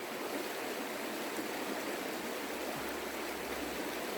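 Creek water flowing over rocks, a steady even rush.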